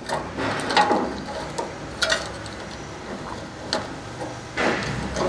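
Wires being pulled and worked free of a slot in a pellet grill's sheet-metal housing: irregular rustling and scraping, with a few sharp clicks.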